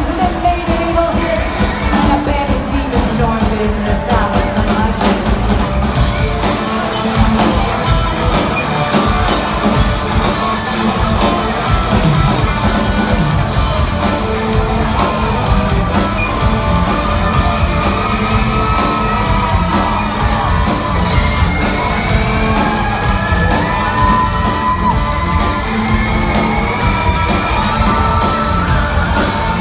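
Live country-rock band playing loud, with fiddle, electric guitar, bass and drums, a voice singing over it and yells from the crowd.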